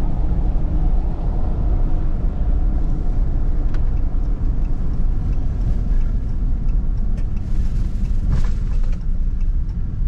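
Steady engine and tyre noise of a vehicle driving along a country road, heard from inside the cab.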